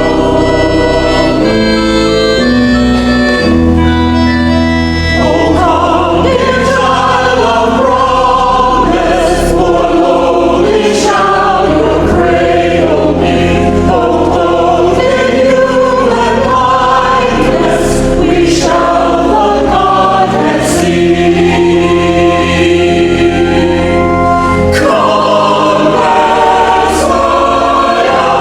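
Church choir singing a sacred piece with accompaniment, held chords over sustained bass notes.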